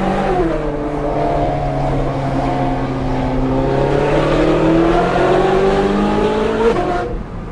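Ferrari 458 Speciale's naturally aspirated 4.5-litre V8 with an Fi aftermarket exhaust, heard from inside the cabin while driving. The engine note drops about half a second in, holds steady, then climbs for several seconds under acceleration and drops sharply near the end.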